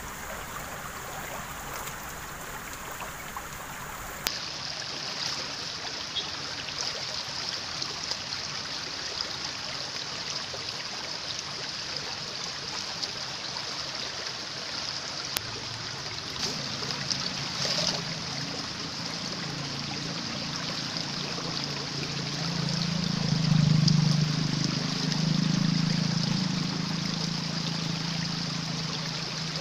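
Shallow stream running and splashing around hands working in the water. A lower rumble comes in past the middle and swells, loudest about three quarters of the way through.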